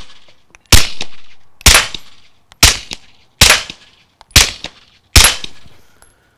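Six suppressed 9mm pistol shots from a Glock 17C fitted with a SilencerCo Omega 9K suppressor, fired at a steady pace of about one a second. Each shot is a sharp crack that trails off over most of a second.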